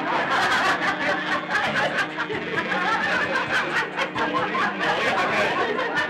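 Several people laughing and chattering at once, with background music beneath; the music's held notes fade out after a couple of seconds.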